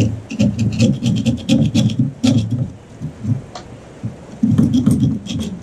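Steel screwdriver tip scraping and clicking inside the gearbox bearing of a Honda rear roller mower: a rapid, uneven run of sharp metal clicks with dull low knocks of the gearbox being handled. The bearing is worn out and has lost its rollers, the cause of the squeaky rear roller.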